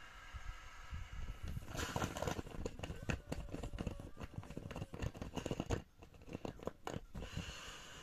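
Irregular rustling, taps and thumps of nylon sleeping bags and an inflatable air mattress being handled and pressed.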